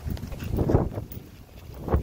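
Rumble from wind and clothing rubbing against a handheld phone's microphone, surging about half a second in and again just before the end.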